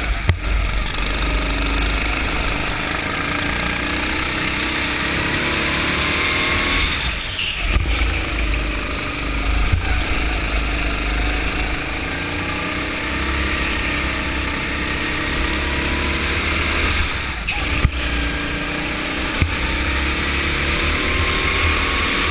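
Go-kart engine heard from on board the kart, its note climbing steadily in pitch as it accelerates and dropping off briefly twice as it lets off for corners.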